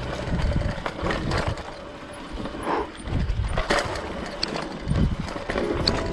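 Mountain bike rolling over a muddy, rutted trail: irregular knocks and rattles from the bike and its tyres bumping through the mud.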